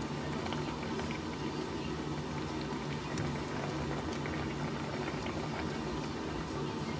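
Water boiling hard in a nonstick pan of sliced radish, a steady bubbling with fine pops, as pieces of hairtail are laid in. There is a faint tap about three seconds in.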